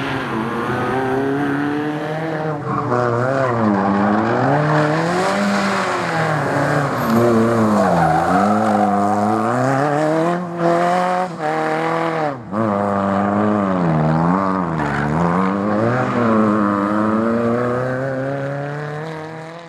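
A race car's engine revving hard and easing off again and again as it is driven flat out through a cone slalom, with its tyres squealing. There are brief drops in revs about halfway through, and the sound fades out at the very end.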